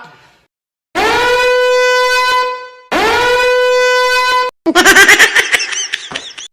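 Two long horn-like blasts, each sliding up at the start and then holding a steady note, followed by a shorter wavering, warbling sound that pulses rapidly, all played as meme sound effects.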